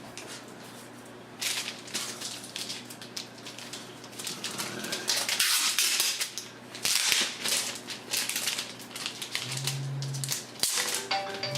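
Crinkling and crackling of plastic packaging being handled, irregular and close. Near the end a low buzz sounds for about a second.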